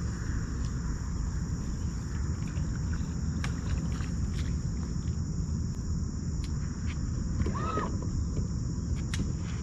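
Steady, high-pitched chorus of insects over a constant low rumble, with a few faint ticks and one short rising-and-falling whistle-like note about eight seconds in.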